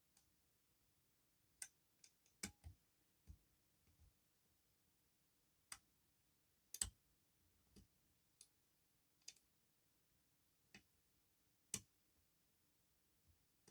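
Faint, irregular sharp clicks of a lock pick working the pin tumblers of a handmade challenge lock, pins clicking as they are lifted, set and dropped. About fifteen clicks at uneven spacing, the loudest near the middle.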